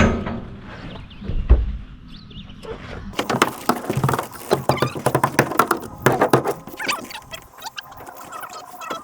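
A couple of dull thumps, then a quick, irregular run of crackling and clicking work noise from handling roofing materials.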